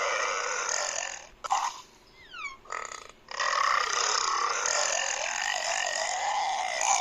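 Two long, drawn-out burps with a wavering pitch: the first ends about a second in, the second starts about three seconds in and runs almost four seconds. Between them come a few quick falling tones.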